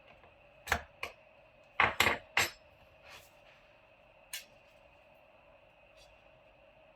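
A scattering of small, sharp clicks and knocks, about seven, the loudest bunched together about two seconds in, from small hard parts and tools being handled during disassembly of a mini PC. A faint steady tone runs underneath.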